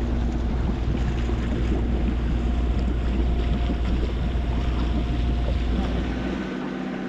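Wind buffeting the microphone and water rushing past the hull of a sailboat under way, over a faint steady hum of its engine. The low wind rumble drops off about six and a half seconds in.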